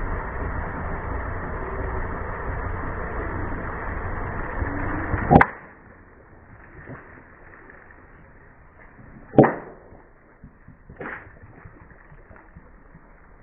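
A car engine running steadily, ended by a sharp crack about five seconds in as an object cracks under the car. Two more sharp cracks follow about four and six seconds later, the last much fainter.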